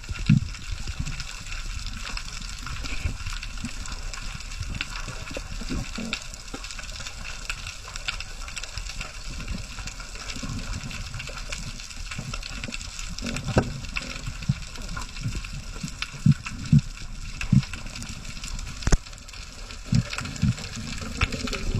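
Water rushing and sloshing against the microphone, with scattered short low thumps.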